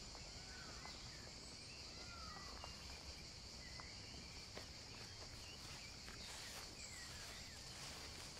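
Faint outdoor garden ambience: a steady, high-pitched insect drone with a few short bird chirps scattered through it.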